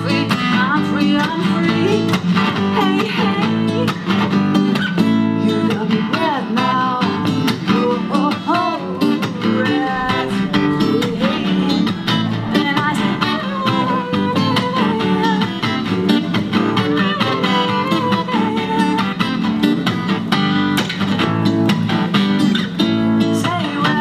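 Acoustic guitar strummed with an electric bass underneath, playing an instrumental passage of a song, with a melody line above that slides in pitch.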